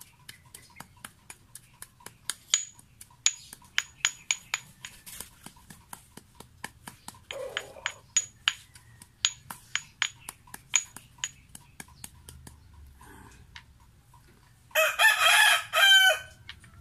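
Stone mortar and pestle pounding papaya leaves: quick, regular taps of the pestle against the mortar, each with a light ring. Near the end a rooster crows once, loudly, for about a second and a half.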